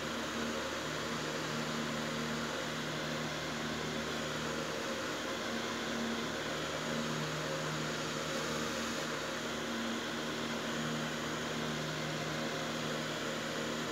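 A steady low machine hum under a hiss, unchanging throughout.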